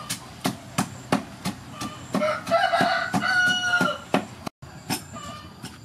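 Wooden pestle striking in a wooden mortar, about three strokes a second. In the middle a rooster crows, the loudest sound, for about two seconds.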